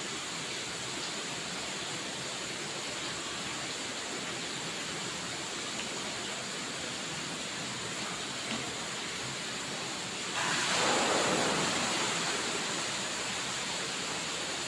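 Steady background hiss with no distinct events; about ten seconds in, a louder rushing noise comes in suddenly and fades away over a few seconds.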